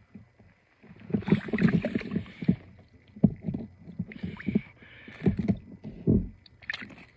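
Handling noise as a small perch is pulled up through an ice-fishing hole and dealt with: irregular bursts of rustling and sharp knocks, in about five clusters.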